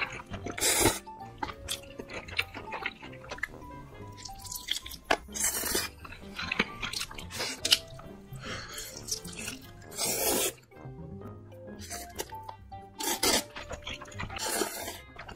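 Wet, noisy slurps of instant ramen noodles being sucked in off chopsticks: about four loud slurps a few seconds apart with smaller ones between. Soft background music plays underneath.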